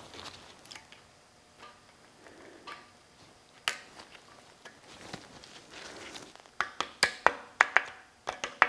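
Small steel parts clicking and tapping at the axle shaft end in a truck's front hub as the shaft keeper is fitted with pliers, with rag rustle. A single sharp click comes a few seconds in, then a quick run of sharp, slightly ringing clicks near the end.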